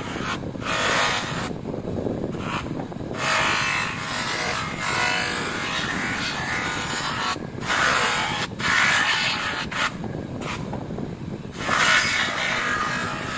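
Power polishing machine running steadily, with a hissing rub that cuts in and out several times as the motorcycle footrest is pressed onto the buffing wheel and lifted off.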